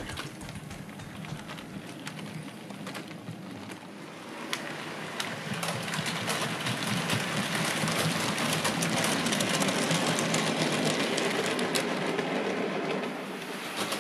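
Model train running on the layout: small electric motor whirring and wheels rattling and clicking on the track, growing louder from about four seconds in as it comes closer, then easing slightly near the end.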